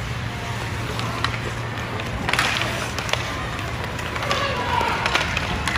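Ice hockey game play: skates scraping and sticks and puck clacking in scattered sharp knocks, over a steady hum, with distant voices shouting.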